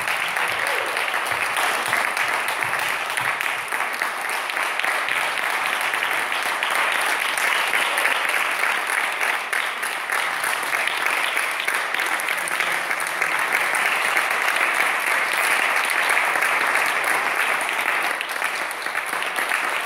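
Audience applauding, a dense, even applause.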